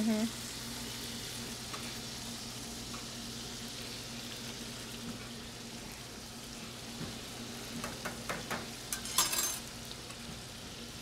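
Tempura-battered salt cod (bacalao) deep-frying in a pan of hot oil, a steady sizzle, with a short run of louder crackles a little past the middle.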